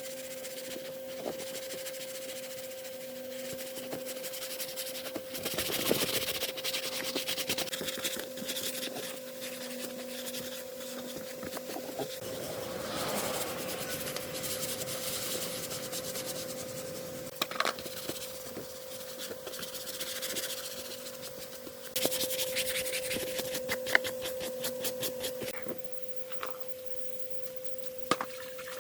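Rubbing and scraping of hand work on a surface, such as sanding or filing, over a steady hum. The rubbing is louder for a stretch a little past halfway, with a few sharp knocks.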